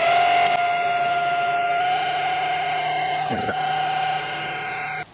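Small metal lathe running with a steady high-pitched whine from its drive and gears while a cutting tool feeds into a spinning brass rod. The whine cuts off suddenly near the end as the lathe stops.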